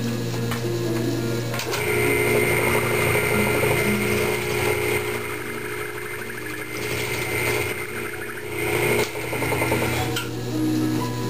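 Vertical milling machine running with a steady motor hum, its spindle cutting into a metal mould block as the quill is hand-fed down. A high-pitched cutting whine starts about two seconds in, eases briefly around the middle, and stops about ten seconds in.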